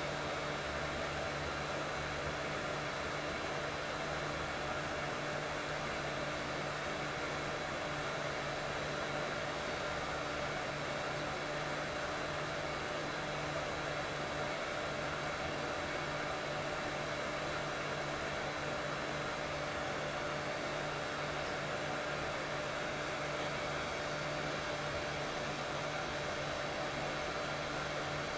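Steady, unchanging white noise with a faint low hum running through it.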